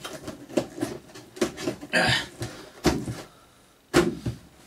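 Cardboard toy box being handled and closed: a string of light knocks and clicks of cardboard, a scraping rustle about two seconds in, and two sharper knocks near the end.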